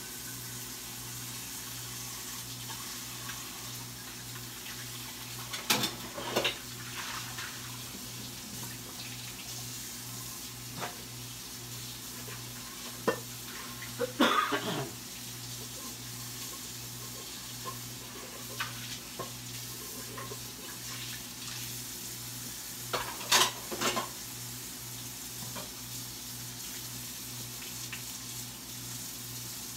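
Dishes and utensils being handled at a kitchen sink: short clatters a few times (about six seconds in, around the middle, and near the end) over a steady hiss and a low hum.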